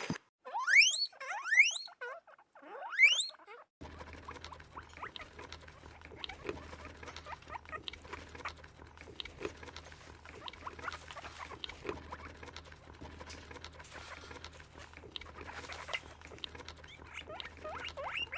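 Small animals feeding: rapid small clicks of chewing with short squeaks, over a steady low hum. Near the start come three quick clusters of rising whistle-like sweeps.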